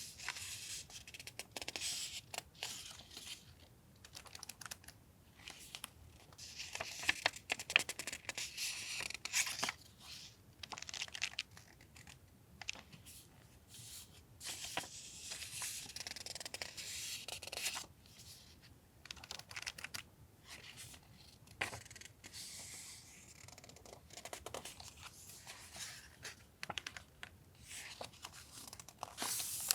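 Paper stationery and its packaging being handled: stickers and memo sheets peeled, torn and rustled in several long rasping stretches, with light taps and clicks between them.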